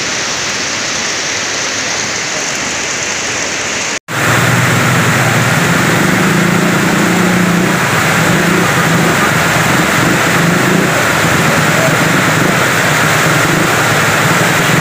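Steady rush of a lahar, a muddy flood of volcanic debris and water, heard with falling rain. About four seconds in, the sound cuts out for an instant and comes back louder and fuller, with the flood close by.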